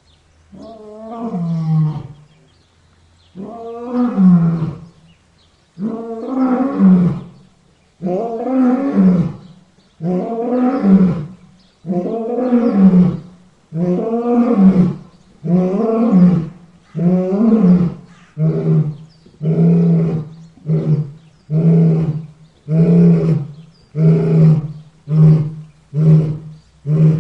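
Lion roaring bout: about twenty calls, the first few long roars that rise and fall in pitch, then shorter grunting roars coming faster and faster, nearly one a second by the end.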